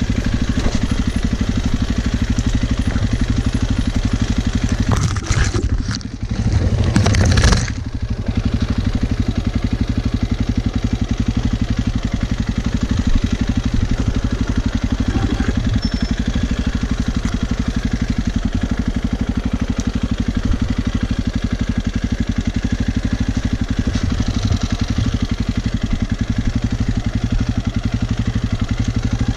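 Enduro motorcycle engine running steadily while riding, with a brief louder rush of noise about six to eight seconds in.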